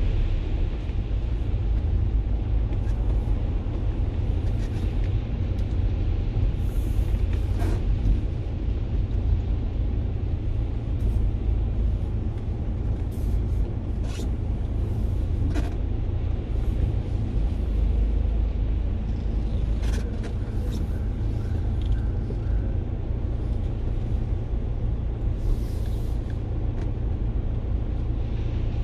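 Steady low rumble in a wet underground parking garage, with a few brief sharp sounds scattered through it.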